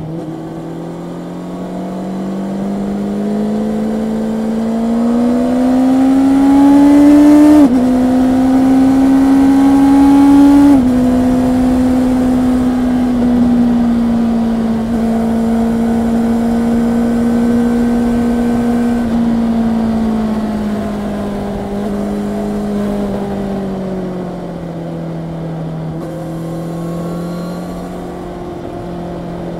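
Honda CB650R's inline-four engine accelerating hard with its pitch climbing, then upshifting twice in quick succession about eight and eleven seconds in. It then holds a steady cruise, and about twenty seconds in the throttle eases off and the engine speed falls.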